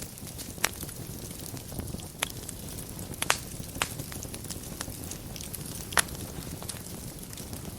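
Wood fire burning in a fireplace: a steady low rumble of flames with sharp, irregular crackles and pops. The loudest pops come a little under a second in, at about three seconds in (a quick double pop) and at about six seconds in.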